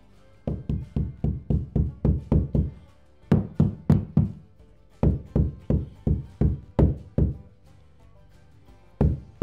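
Rapid knocking on an engineered-wood chevron floor piece as it is tapped into place: three runs of about five knocks a second, then one more knock near the end. Background music plays underneath.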